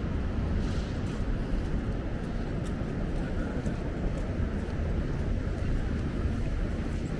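Steady low rumble of city street traffic, with a few faint ticks over it.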